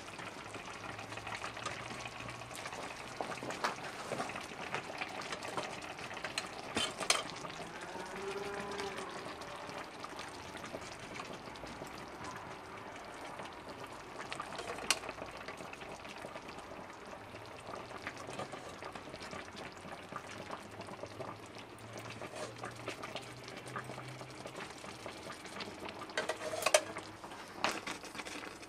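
Hot, freshly baked baklava sizzling in its metal tray: a steady soft crackle with scattered small pops, a few louder clicks about a quarter of the way in and near the end.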